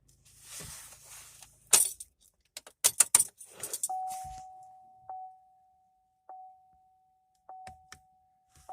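Keys jangling, with a quick run of sharp metallic clicks, then a steady single-pitch electronic tone comes on about halfway through and holds, with a few light clicks over it.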